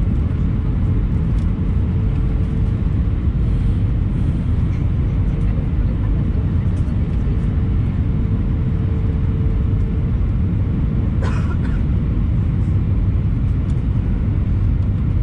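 Airbus A319 cabin noise: a steady low rumble of engines and airflow heard from a passenger seat, with a faint steady hum. A short click sounds about eleven seconds in.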